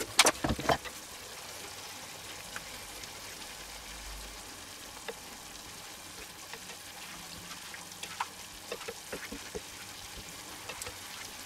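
Cream sauce simmering in a pan with a steady low sizzle. A few sharp knocks of a utensil against the pan in the first second, then light clicks and scrapes of a slotted spatula stirring the sauce.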